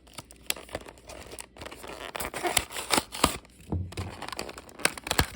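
Blind-box toy packaging being torn open by hand: a busy run of crinkling, tearing and sharp clicks.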